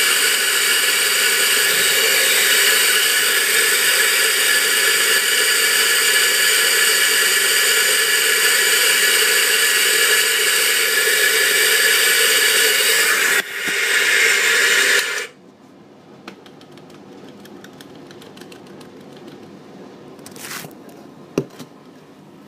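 Electric coffee grinder running steadily with a high whine as it grinds, briefly dipping about 13 seconds in, then cutting off about 15 seconds in. A single sharp click near the end.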